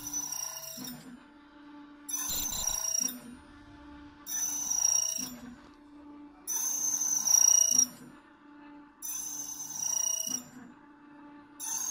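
Key-cutting machine's spinning disc cutter cutting notches into a long-shanked door key. Each cut lasts about a second and comes roughly every two seconds, five in all, with a shrill ringing of metal on metal. Between cuts the machine's motor hums steadily.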